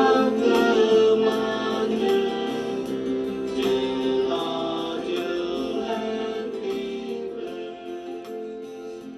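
A song with singing over instruments, gradually fading out.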